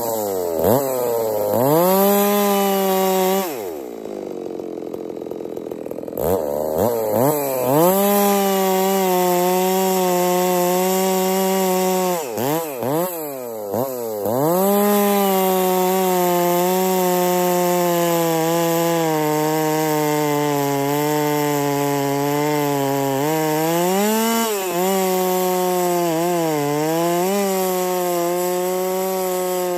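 A ported Stihl 660-type big-bore chainsaw cutting through a thick log, held at high revs under load. About four seconds in, the revs sag and then climb back. A few quick throttle dips follow near the middle and again late on, and between them the saw cuts steadily at full throttle.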